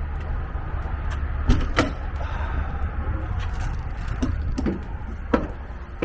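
A few short knocks and clicks over a steady low rumble: someone climbing into a parked RV, its door and entry steps being handled.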